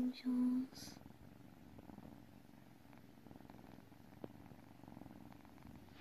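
Two kittens purring, a soft, steady, low rumble. At the very start a short hummed voice note dies away in under a second.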